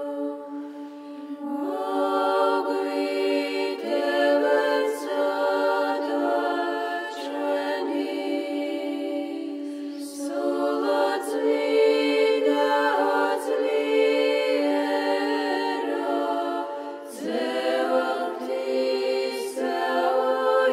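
Unaccompanied Orthodox church chant sung by a choir: a held drone note under a melody moving above it, sung in phrases with short breaks between them.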